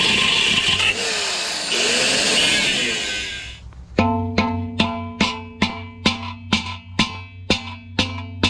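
A power tool grinding the rim of a cast iron pot, its pitch dipping a couple of times under load, stops a little over three seconds in. About four seconds in, background music starts: plucked guitar notes at an even beat, a little over two a second, over a steady bass.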